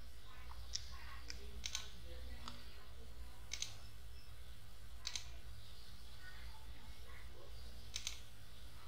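Computer mouse clicking: about six short clicks at irregular intervals, some in quick pairs, as edges are picked in CAD software, over a steady low hum.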